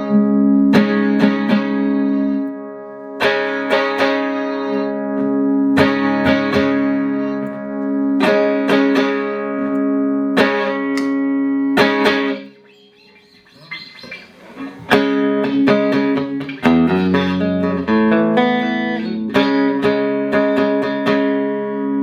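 Clean electric guitar played through a Boss GE-7 equalizer pedal into Roland JC-120 amps: repeated strummed chords ringing out. A short quiet break comes a little past halfway, then a few single notes before the chords come back.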